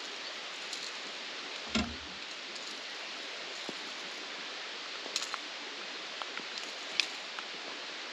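Steady hiss of rain falling on the river, with scattered small clicks and a dull thump about two seconds in.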